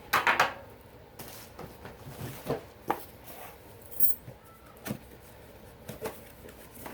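Scattered light clicks and knocks of plastic fire alarm devices and back boxes being handled and moved while being unpacked from a box, with a short cluster of handling noise just at the start.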